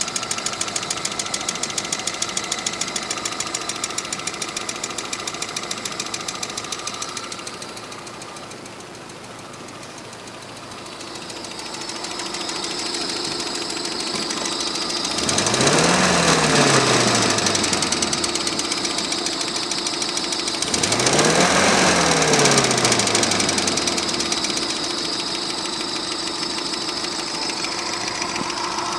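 UMZ-417 engine running with a rapid knock, the 'knock in the engine' that the owner is recording. It idles knocking at first, then is revved up and let fall back twice, about halfway through and again some six seconds later.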